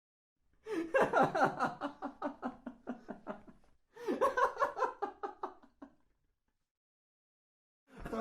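Human laughter in two bouts of rapid, pulsed 'ha-ha' laughing, the first about three seconds long starting just under a second in, the second about two seconds long.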